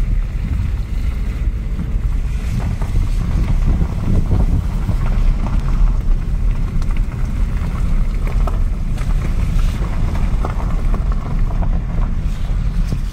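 Wind buffeting the microphone: a loud, steady low rumble, with scattered faint crackles.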